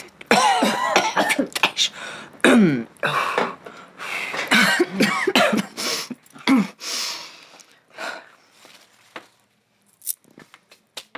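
A woman coughing and clearing her throat in a long hacking fit with voice in it, dying away about seven seconds in; a few faint clicks follow.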